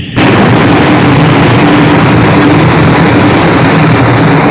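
Loud, dense rock music that kicks in abruptly just after the start and carries on at full level.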